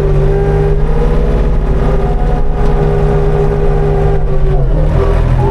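Engine of a snow-clearing machine running steadily and loudly, with a steady whine over its low hum.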